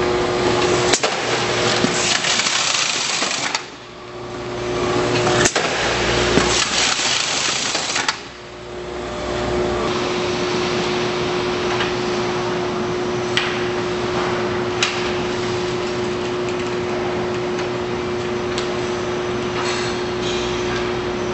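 Packaging case-sealer machine running: a steady motor hum with a held tone, a heavy rushing noise through the first eight seconds, and a few sharp clicks.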